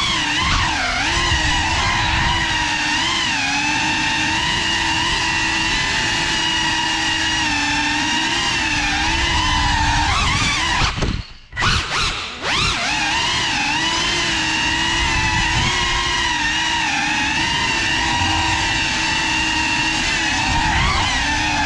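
Brushless motors and propellers of a GEPRC FPV quadcopter whining, heard close up from the onboard GoPro, the pitch wavering up and down as the throttle changes. About halfway through the whine cuts out for about a second, then picks back up.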